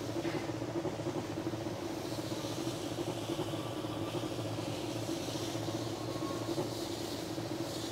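Sprayer pump running with a steady hum while liquid sprays onto a plant with a hiss.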